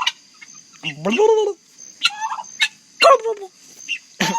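Domestic turkeys gobbling, about four short calls roughly a second apart.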